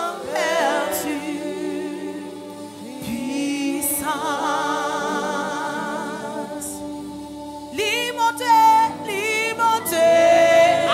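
Gospel worship singing: a woman's voice sings a slow melody with wavering, held notes, growing louder and higher about three quarters of the way in.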